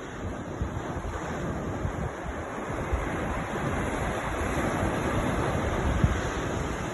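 Sea waves surging and washing onto a shore as a continuous rush that swells gradually. Wind rumbles on the microphone underneath.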